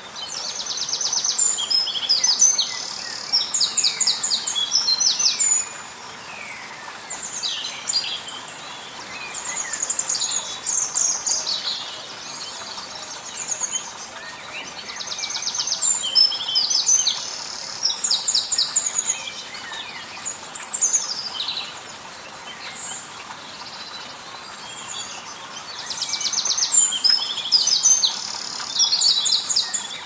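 Birdsong: a songbird sings phrases a few seconds long, packed with rapid high trills and quick notes, with short pauses between them.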